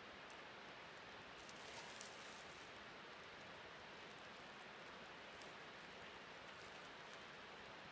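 Faint steady rush of a waterfall, with a few small high ticks, a cluster of them about two seconds in.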